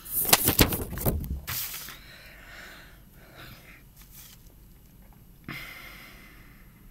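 Handling noise from the recording device being grabbed and moved close to its microphone: a quick run of clicks, knocks and rustling in the first two seconds, then a quiet room with a few faint rustles and a short puff of noise about five and a half seconds in.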